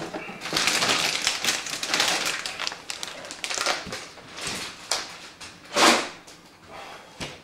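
Clicking and rustling of cables and plastic parts being handled inside a PC case, dense for the first few seconds, with one louder handling noise near the end.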